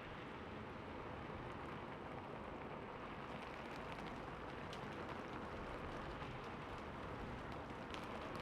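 Steady rain falling on a rooftop: a constant hiss of rainfall with scattered individual drop ticks, more of them in the second half.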